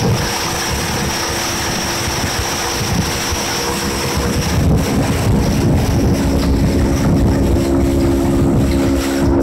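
A Mercury 40 hp two-stroke outboard running at high, steady revs as a jon boat planes past. Its steady engine note fades just after the start and comes back about halfway through. Heavy wind buffeting on the microphone and splashing water run underneath.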